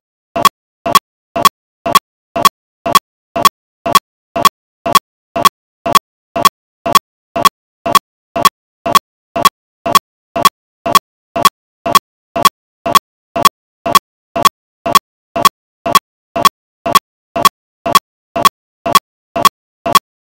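A short, sharp pitched tick repeating at a perfectly steady pace, about two a second, with complete silence between the ticks.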